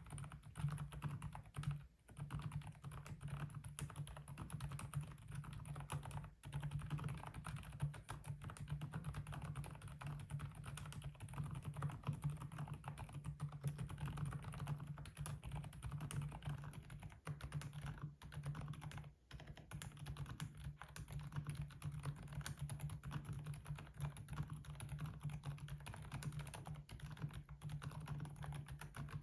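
Continuous typing on Kailh Deep Sea Pro Whale silent tactile switches, a dense run of muted keystrokes with brief pauses about 2, 6 and 19 seconds in.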